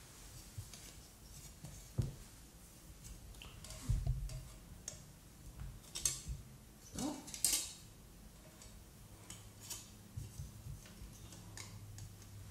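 Plastic model-kit sprues and parts being handled on a tabletop, with a pair of side cutters brought up to a sprue: scattered light clicks and taps of hard plastic, a dull knock about four seconds in, and a couple of short scraping rustles a little after the middle.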